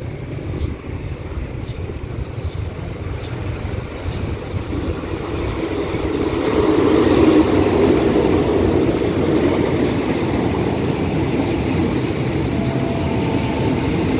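Passenger train pulling into a station: the rumble of its coaches rolling over the rails swells about six seconds in. A high, steady brake squeal joins about ten seconds in as the train slows to stop.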